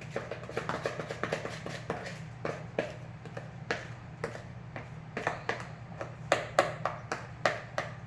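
A spoon tapping and scraping against a bowl while scooping out thick brownie batter: irregular clicks, coming faster and sharper in the second half, over a steady low hum.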